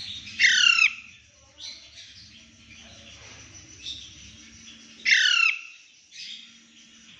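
Pet parrot calling: two loud, harsh screeches, each a quick downward sweep about half a second long, about 4.5 seconds apart, with shorter, fainter calls between them and near the end.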